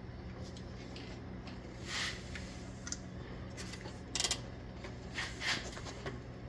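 Metal bolts and a Jeep Cherokee XJ's thermostat housing being handled as the bolts are threaded in by hand: a few brief scrapes and clicks, the loudest a quick double one about four seconds in, over a steady low hum.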